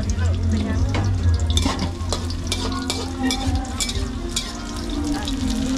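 Food frying in oil in a wok while a metal spatula stirs it, with repeated scrapes and clinks of the spatula against the wok over a steady low hum.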